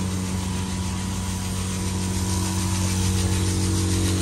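A steady low mechanical hum with a constant hiss over it, from a machine running without a break.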